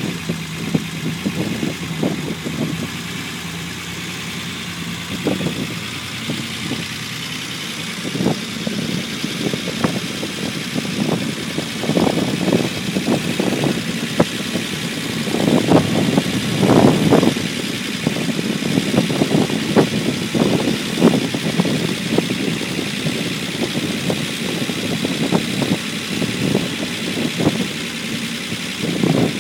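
Unimog 404's inline-six petrol engine running around idle after its rebuild, with an uneven note that surges irregularly.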